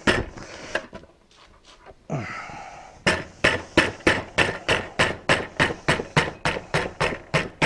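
Light hand handling noise, then from about three seconds in a steady run of sharp hammer taps on a sheet-aluminium rib, about four a second.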